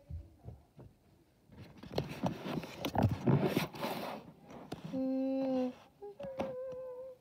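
Rustling and scraping of handling on a fleece blanket for a few seconds, then a short, steady hummed note and, near the end, a second wavering one.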